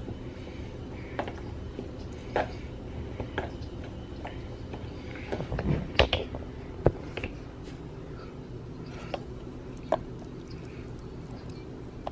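Thick pancake batter being stirred in a plastic bowl, with the utensil clicking against the bowl every second or so over a steady low hum. A few louder knocks about six seconds in as the phone camera is handled.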